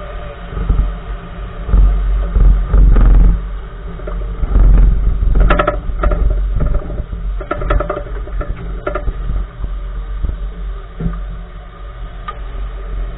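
Road and tyre rumble from a 2014 Nissan March on the move, broken by repeated clunks from the right front wheel, several coming in quick clusters through the middle. The clunking is a front suspension or steering fault whose part is not yet identified.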